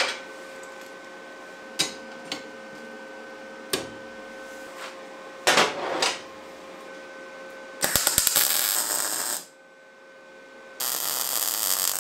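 Steel parts knocking and clanking as they are set down and clamped, then two MIG tack welds, each a crackling hiss of about a second and a half, the first about two-thirds in and the second near the end. A steady hum runs underneath.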